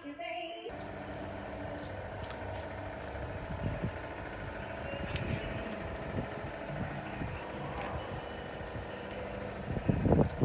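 Steady low rumble of background noise with a faint hum, beginning abruptly about a second in. Loud, irregular low thumps start near the end.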